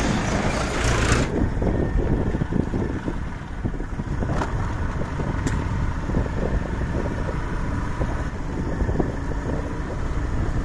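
Steady low rumble of a motor scooter on the move, mixed with wind on the microphone. A louder hiss in the first second comes as a tractor passes alongside.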